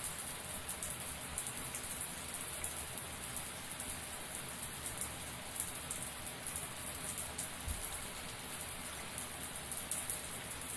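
Shower running steadily, its water spray pattering and splashing in a dense, even hiss of droplets.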